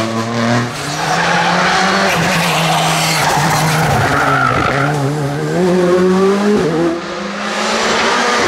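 Škoda Fabia R5 rally cars at full attack, their turbocharged four-cylinder engines revving hard, the pitch climbing and dropping with each gear change, with tyre squeal as they slide through the corners. The engine note changes abruptly about a second in and again near the end as one car gives way to the next.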